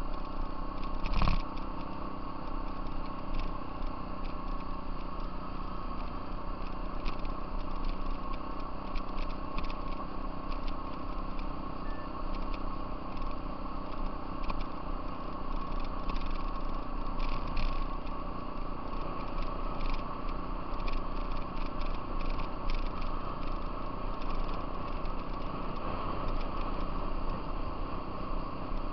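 Off-road vehicle's engine running steadily while riding over a gravel trail, with frequent short clicks from the gravel and one sharp knock about a second in.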